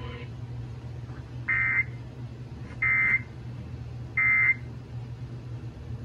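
Emergency Alert System end-of-message data tones from a TV speaker: three short bursts about 1.4 seconds apart, each about a third of a second long, the digital code that closes the alert.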